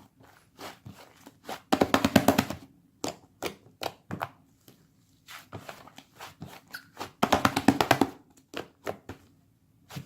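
Blue and white slime being squeezed and pressed by hand, making scattered sticky clicks and pops. Twice, about two seconds in and again about seven seconds in, comes a loud run of rapid crackling pops lasting about a second.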